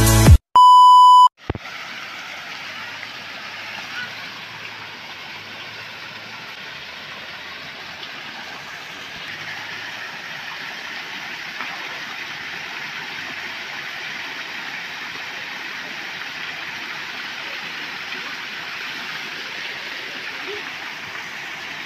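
A short electronic beep sounds just after the start, then water pours steadily over a low concrete weir into a shallow creek, an even rushing.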